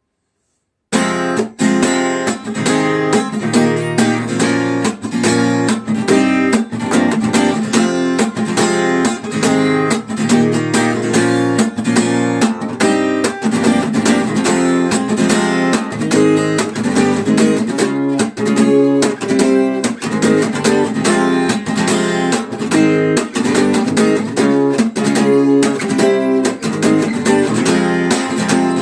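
Acoustic guitar strummed in a steady rhythm, starting about a second in, playing the instrumental introduction of a song.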